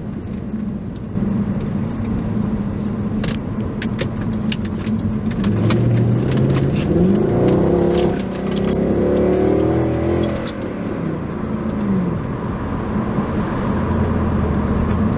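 Mercedes C63 AMG's 6.3-litre V8 heard from inside the cabin while driving: the engine note climbs about halfway through, stays high and loud for a few seconds under throttle, then falls away. Light clicks and rattles are heard through the first half.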